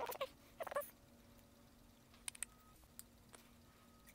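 Side cutters snipping small nubs off a 3D-printed plastic part: four sharp little clicks in the second half. Just after the start there are two short voice-like calls.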